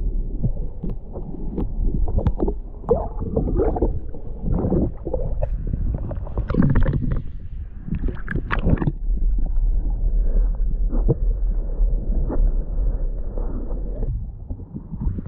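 Water and knocking heard through a camera held under shallow water: a steady low rumble with muffled sloshing, gurgling and knocks as the camera moves. A busier run of sharper knocks and splashes comes about six to nine seconds in, then it settles back to the low rumble.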